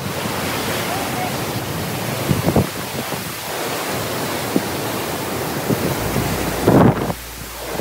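Hurricane wind and rain as a loud, steady rush, with a couple of stronger gusts buffeting the microphone.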